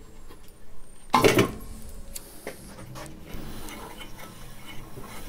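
Metal clinks from a hand tool at the blade-guide bearings of a Valex SN209 bandsaw as the guides are adjusted: one louder metallic clatter about a second in, then a few light clicks.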